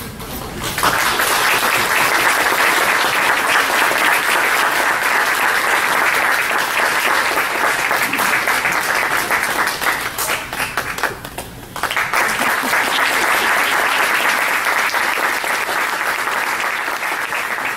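Audience applauding, with a short lull about twelve seconds in before the clapping picks up again.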